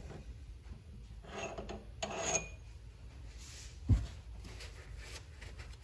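Three-jaw chuck of a mini lathe being loosened with its chuck key and the turned metal part slid out: two short bouts of metal-on-metal scraping, the second with a faint ring, then a single sharp knock about four seconds in.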